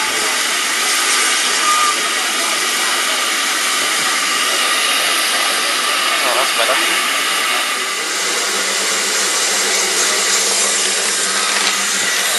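Steam locomotive venting steam: a loud, steady hiss that holds without a break, with faint voices underneath.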